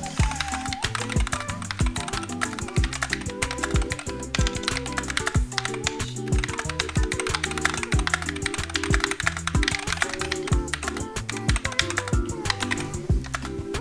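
Fast typing on a Dierya DK61E 60% mechanical keyboard: a rapid, continuous run of key clicks, over background music with a steady bass line.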